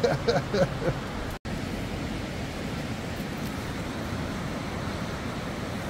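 A man laughing briefly, then the steady rushing of a fast-flowing river over rapids.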